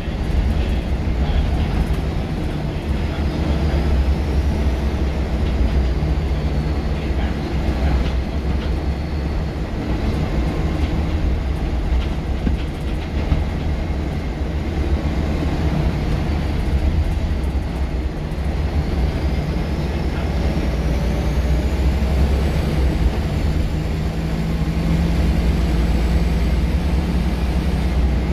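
Scania L94UB single-deck bus heard from inside the saloon while under way: a steady low engine drone and road noise with small rattles from the fittings. A faint high whine rises and falls through the run.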